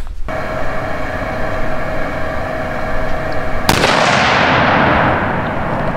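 A single shot from a scoped hunting rifle about two-thirds of the way through: a sharp crack, then a long echo fading away over about two seconds. A steady background hum runs before the shot.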